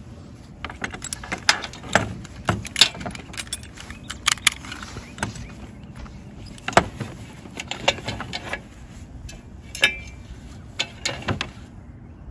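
Metal clicks and clinks of a Petzl Rig rope descender and its carabiners being unclipped and handled on a rope, irregular and scattered, a few sharper than the rest.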